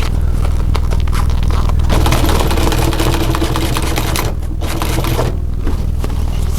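Electric sewing machine running, its motor humming steadily as the needle stitches rapidly through fabric being fed under it, easing off briefly twice in the second half.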